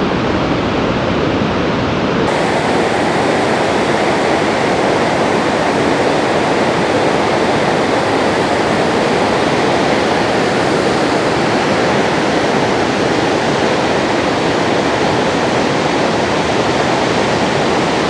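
Barachukki Falls on the Kaveri river in high monsoon flow: a steady, loud rush of falling water. The rush turns a little brighter about two seconds in.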